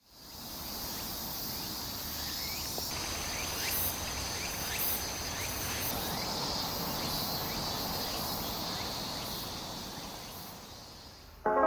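Outdoor ambience of insects trilling steadily at a high pitch, with a series of short rising chirps in the first half. It fades in at the start and fades out near the end.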